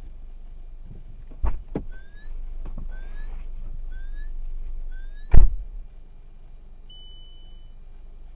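A car door, heard as a thump, then four short rising chirps about a second apart, then a loud slam, followed a moment later by one short beep.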